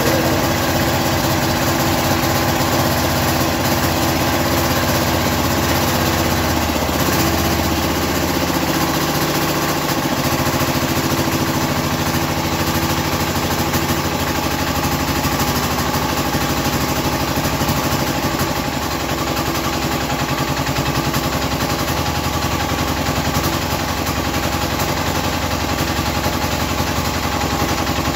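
Small single-cylinder air-cooled diesel engine (Platinum 7.5 hp) running steadily with a rapid, even knock of firing strokes, its speed shifting briefly about seven seconds in.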